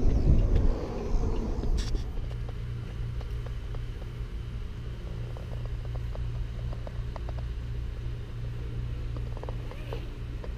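Wind rumbling on the microphone for about the first two seconds, then a steady low hum with a few faint clicks: the room tone of a large shop's ventilation.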